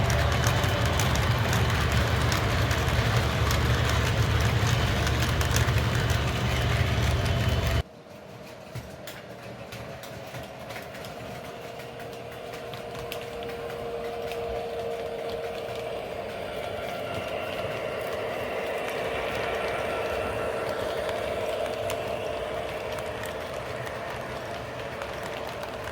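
O gauge model diesel locomotive running: the diesel engine sound from its onboard sound system, with wheel and track noise. The sound is loud and dense for about eight seconds, then drops suddenly to a quieter, steadier hum with a few held tones that slowly grow louder.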